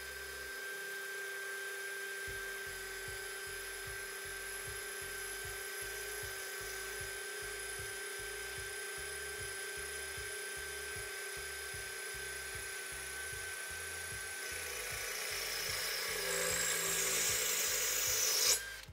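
Power drill fitted with a Zest Z-HT7P all-purpose bullet-point bit, grinding a hole into porcelain tile. It makes a steady motor whine at an unchanging speed over a scraping grind. The sound grows louder for the last few seconds and cuts off suddenly near the end.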